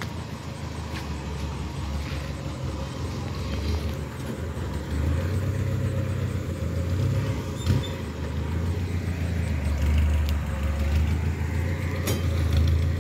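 Low, steady vehicle rumble that grows louder about five seconds in, with a single sharp knock near the middle.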